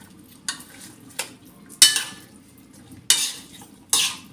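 A cooking utensil scraping and clinking against a nonstick frying pan as raw milkfish and vegetables are stirred together, about five separate strokes with the loudest about two seconds in.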